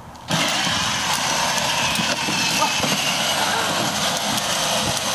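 Battery-powered ride-on toy motorcycle running as the child drives it, a steady, noisy rush that starts abruptly about a third of a second in.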